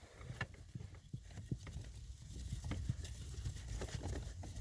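Faint, irregular clicks and taps of a hand tool and screw being worked into a hard-to-reach mounting point of a car's blower motor, over a low steady rumble.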